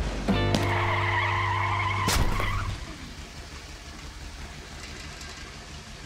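Designed car sound effects: an engine rumble under a wavering tyre squeal for about two and a half seconds, with a sharp hit near the two-second mark, then dropping to a quieter rumble.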